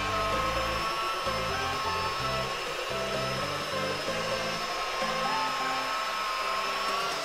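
Electric rotary polisher running steadily with a high motor whine while polishing glass, with electronic background music underneath.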